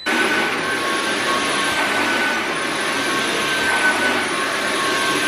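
Cordless stick vacuum cleaner running as it is pushed over carpet: a steady motor whine over a rushing hiss of suction, holding an even level.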